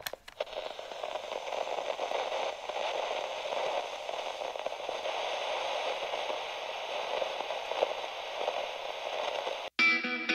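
Steady crackling static, an old-film style noise effect under the logo card. It cuts off abruptly near the end, and music with electric guitar begins.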